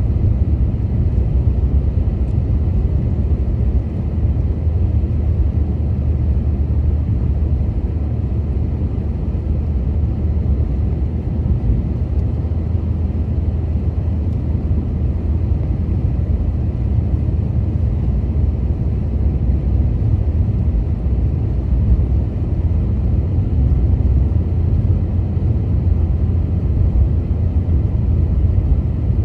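A car driving over snow-covered streets: a steady low rumble of engine and road noise, unchanging throughout.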